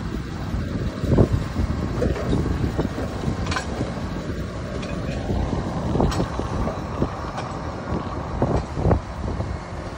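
Heavy diesel engine of a crawler crane running with a steady low rumble, with a few sharp knocks and a tone that rises in pitch partway through.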